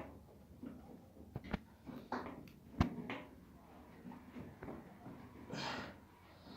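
Scattered light clicks and knocks of small parts being handled, the loudest about three seconds in, with a short rustle near the end.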